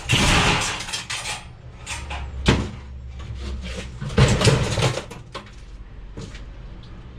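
Scraping, rattling and knocking of parts being handled and worked at while something is stripped for scrap: a noisy scrape at the start, a sharp knock about two and a half seconds in, and another scraping clatter a little after four seconds, over a steady low hum.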